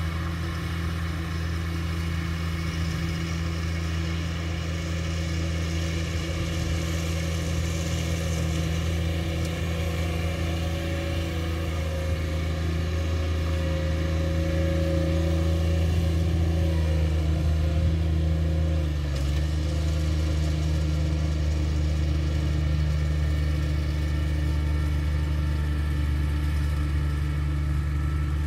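Riding lawn mower engine running steadily as it mows, its pitch dipping slightly about two-thirds of the way through.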